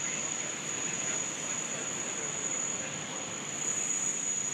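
Steady outdoor airfield background noise with a constant high-pitched whine held throughout.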